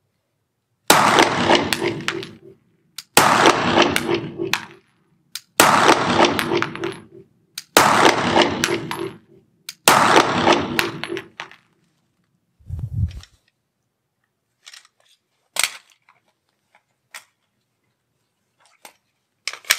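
Five pistol shots about two seconds apart, each ringing out in a long echo off the walls of an indoor shooting range. Then a short dull thump and a few light clicks as the pistol is handled.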